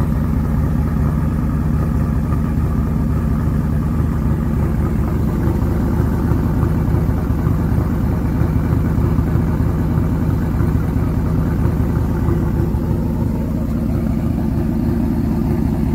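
1990 Chevy Silverado's cammed 350 V8, with headers and a Borla ATAK exhaust, idling steadily with a deep exhaust note.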